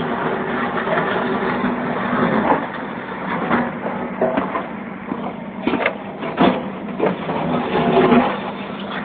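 Backhoe's diesel engine running steadily, with several sharp clanks and knocks from the machine at work, the loudest about six and a half seconds in.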